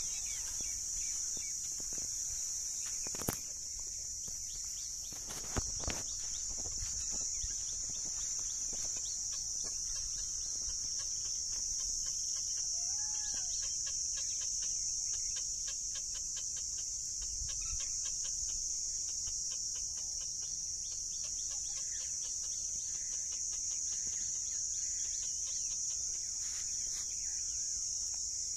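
A steady high-pitched insect drone over low wind rumble on the microphone, with two sharp knocks about three and six seconds in.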